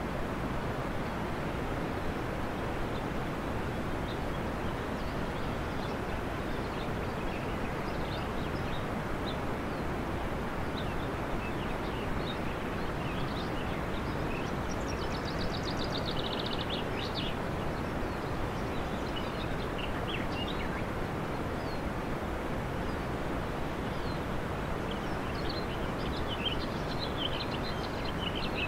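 Steady rushing noise with faint bird chirps scattered through it, and a quick trill about fifteen seconds in.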